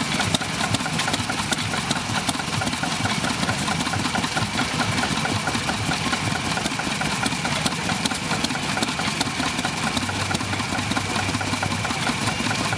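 Vintage engine idling steadily with an even, rapid firing beat.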